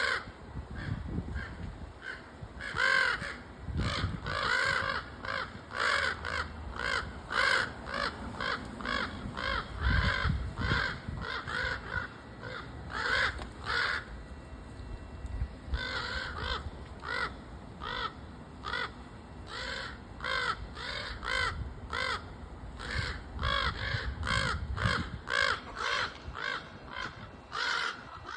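Crows cawing in long runs of short, harsh calls, about two a second, with a pause of a couple of seconds partway through.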